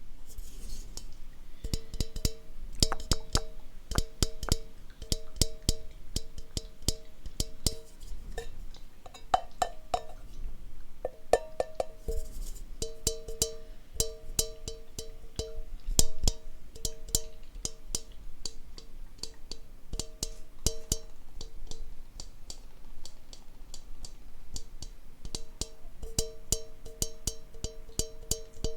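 A rhythmic, music-like pattern of many sharp clicks and taps over short, repeated pitched knocks on two notes, like wood blocks. The pitched knocks drop out twice for a few seconds while the clicks go on.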